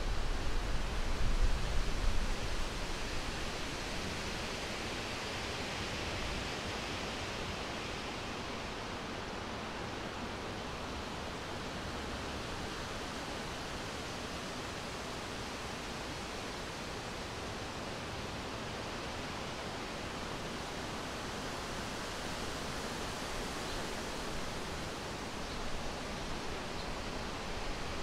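Steady outdoor hiss of wind against the microphone, with low rumbling gusts buffeting it during the first few seconds before it settles to an even rush.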